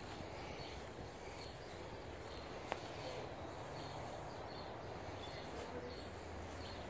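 Quiet outdoor ambience: a steady low rumble with faint scattered chirps, and a single sharp click a little under three seconds in.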